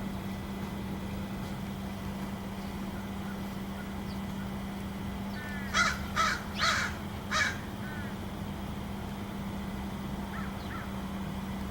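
Crow cawing four times in quick succession about halfway through, with a few faint soft calls around it, over a steady low hum.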